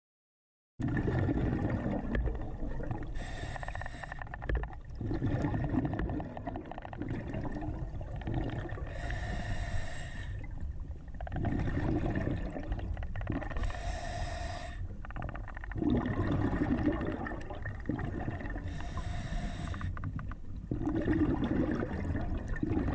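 Scuba diver breathing through a regulator underwater, starting about a second in: a hissing inhale roughly every five seconds, each followed by the low bubbling rumble of the exhaled air.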